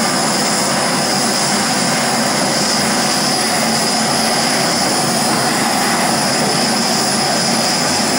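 Twin-tube LPG torch burning with a steady, loud hiss as it heats an aluminium air-conditioner pipe for low-temperature soldering.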